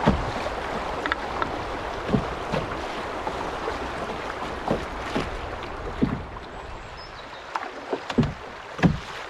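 Single-blade canoe paddle strokes dipping and pulling through the water beside an open canoe, a short splash roughly every second, over a steady rush of choppy river water.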